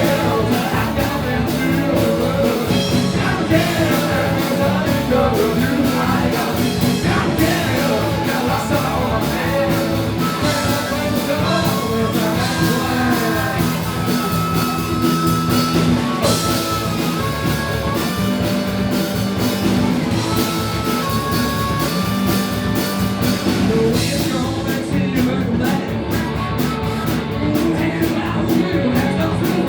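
A rock band playing live: drums, bass and guitars with a singer's voice over them, continuous and loud.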